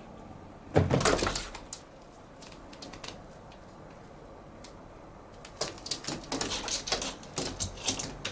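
A Siamese kitten leaps onto a sheer curtain, a sudden thump and rustle of fabric about a second in. Near the end comes a quick run of clicks and scratches as its claws hook into the curtain and the curtain runners rattle on the rail while it climbs.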